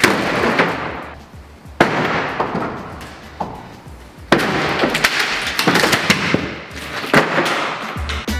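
Ceiling panels being torn down and crashing onto the floor: several sudden crashes, each followed by a rattling clatter that slowly dies away.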